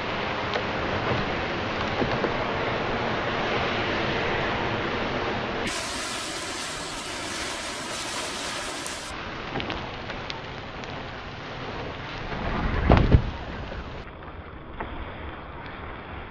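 A matchstick model airplane burning: a steady rush of flames with scattered crackles and pops, and a brief louder rumble near the end.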